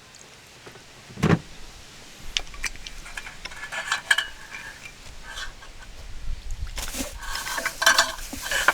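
Metal utensils clinking and scraping against cookware, with one solid knock about a second in. The clatter gets busier near the end.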